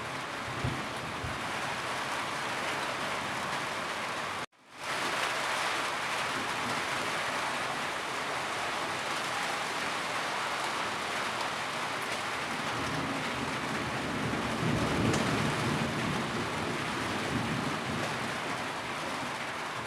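Steady rain falling on a roof, an even hiss of drops. It cuts out for a split second about four and a half seconds in. A low rumble swells in the second half.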